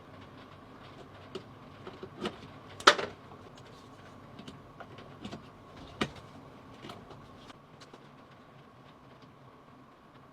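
A run of sharp clicks and knocks, the loudest about three seconds in and another clear one about six seconds in, over a faint steady hum.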